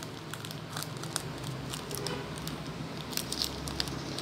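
Small plastic sprinkle packet from a Popin' Cookin' kit crinkling as fingers pinch and squeeze it, in irregular light crackles.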